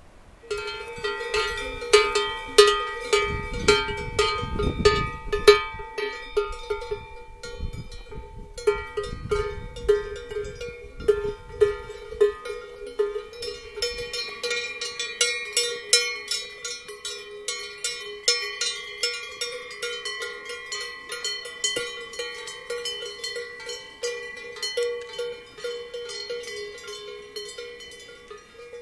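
Cowbells on grazing cattle clanking irregularly, several bells of different pitch ringing together with many strikes a second.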